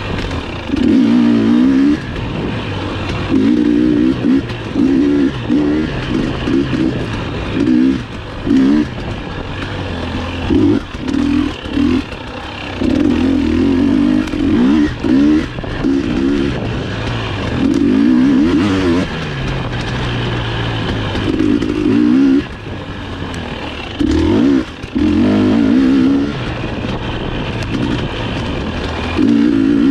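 GasGas EX250 two-stroke dirt bike engine under a rider's constantly changing throttle. Loud bursts of revving, each a second or two long, alternate with shorter dips to lower running.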